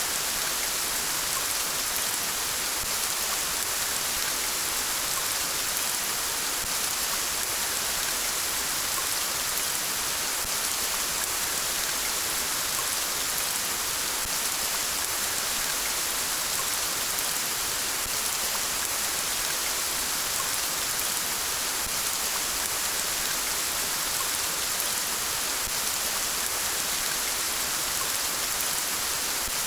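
Steady rain falling and pattering on surfaces, an even hiss with no change.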